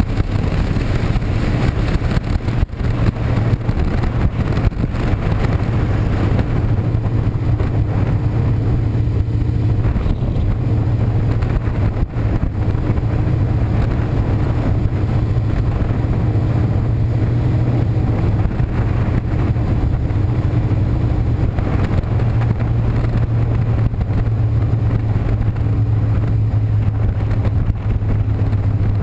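Touring motorcycle engine running at a steady pitch while riding, with rushing wind noise that eases for a stretch in the middle.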